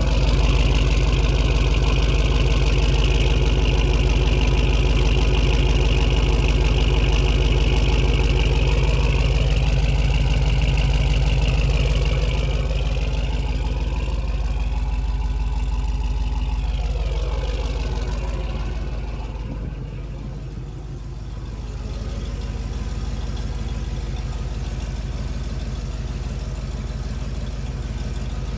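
Dodge Durango engine idling through a Magnaflow aftermarket exhaust: a steady, deep exhaust rumble, louder in the first half and somewhat quieter after.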